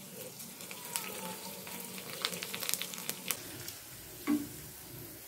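Small ready-made puris deep-frying in hot oil: a steady sizzle with scattered crackles, thickest two to three seconds in.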